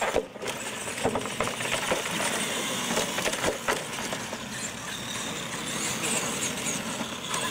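Two radio-controlled monster trucks launching and racing across asphalt: a steady whir of motors and drivetrains with the rattle of the tyres. Sharp knocks come through the first few seconds as the trucks come down off their wheelies and bounce over the pavement.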